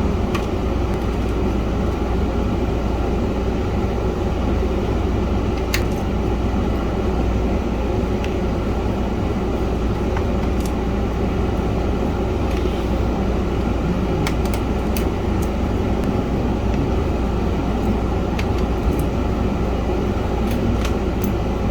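Steady whooshing room noise, like a fan or air conditioner running, with scattered light clicks of screws and a screwdriver as the keyboard screws are taken out.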